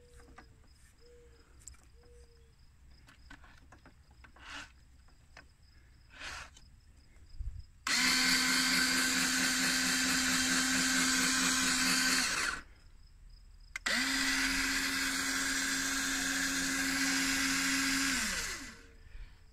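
A power tool motor runs at a steady high speed in two bursts of about four to five seconds each, with a short pause between. It winds down with a falling pitch at the end.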